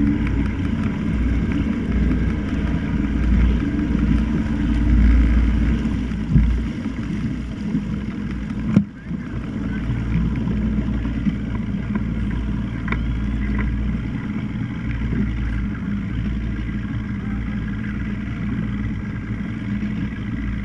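Motorboat running steadily, with a deep wind rumble on the microphone and one sharp knock about nine seconds in.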